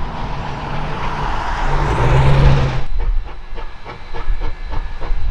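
Narrow gauge steam locomotive hissing steam, building loudly for about three seconds before cutting off sharply. It is followed by a regular clicking of the train's wheels over the rail joints, about four a second.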